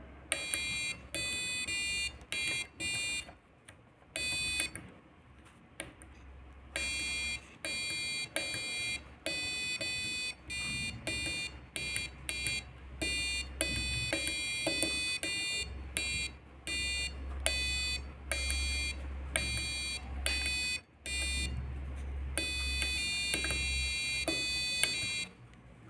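Electronic beeps from an Arduino Uno playing a simple tune: a series of shrill, buzzy notes of changing pitch, some short and some held about a second, with brief gaps between them.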